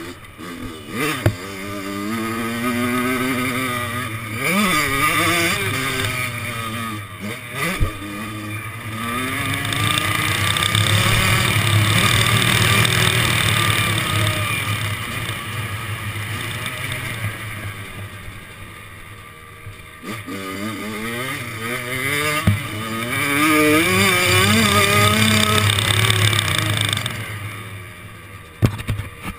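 Kawasaki KX100 motocross bike's single-cylinder two-stroke engine revving hard and dropping off again as it is ridden through the gears, heard from onboard. There are long pulls at full throttle and a few sharp knocks.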